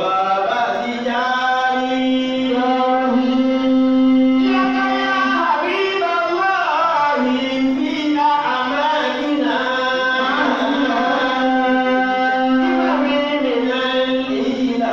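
A man's voice chanting with long held notes and ornamented, wavering turns between them.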